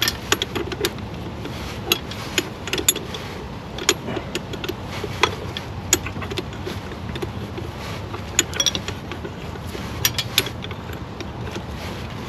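Hand ratchet wrench clicking in short, irregular runs, with light metal clinks between, as small fasteners are tightened.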